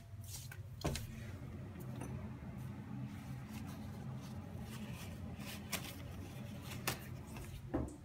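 Hunter Pacific Aurora ceiling fan running on low speed: a steady low motor hum. A few sharp knocks and clicks of the phone being handled break in, the loudest about a second in and near the end.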